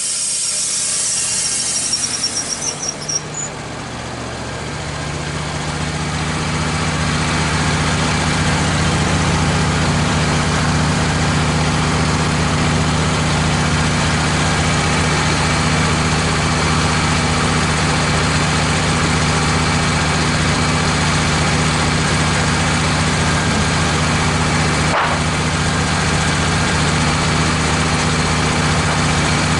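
Wood-Mizer LT15 sawmill's gas engine coming up to speed over a few seconds, then running steadily at speed. A hiss fades out in the first few seconds, and a single sharp click comes near the end.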